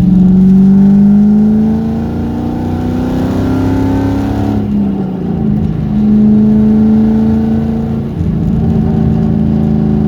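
1998 Mustang Cobra's 4.6 L DOHC V8 pulling with rising pitch for about four and a half seconds, dropping briefly as at a gear change, then holding a steady cruising note. The run is meant to capture a tapping rattle that appears at cruising and light-acceleration rpm, which the owner suspects comes from the timing chains and tensioners or the tappets.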